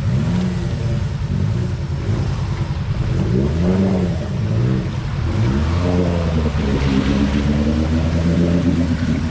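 Off-road 4x4's engine revving, its pitch swinging up and down a few times, then held steady at higher revs about five seconds in, as the vehicle is kept on the throttle to push through a deep section.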